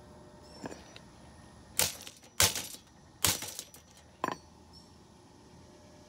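Five sharp clinks and knocks with a brief ring, spread over about four seconds, the loudest near the middle, over a faint steady hum.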